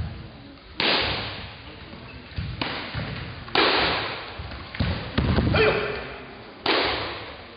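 Taekwondo sparring: about six sharp thuds of kicks landing on padded chest protectors and feet striking the mat, each ringing on briefly in the hall. The loudest hits come about a second in, about three and a half seconds in and near the end, with a short shout around five and a half seconds in.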